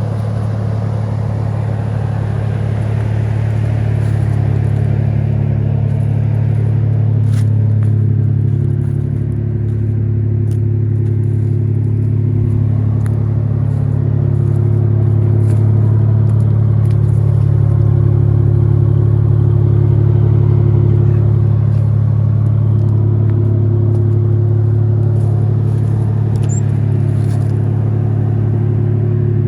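G888 chainsaw's big two-stroke engine running steadily at high revs under load, ripping a white oak slab on a chainsaw mill; it pulls a little louder about halfway through.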